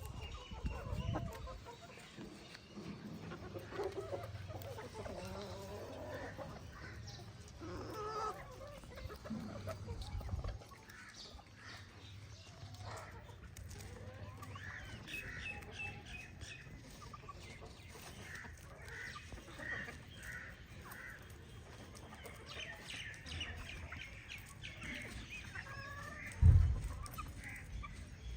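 A flock of chickens clucking, with scattered short, higher chirping calls mixed in over a low hum. A single loud thump comes near the end.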